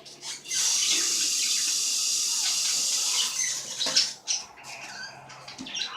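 A loud steady hiss, like rushing water or spraying, starts about half a second in and cuts off abruptly after about three seconds. A few short, sharp sounds follow.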